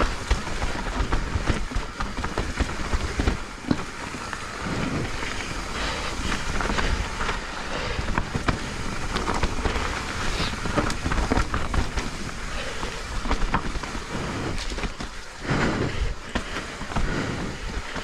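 Mountain bike riding down a wet, muddy trail: tyres rolling over dirt and roots, with a steady rattle and clatter of small knocks from the bike over bumps.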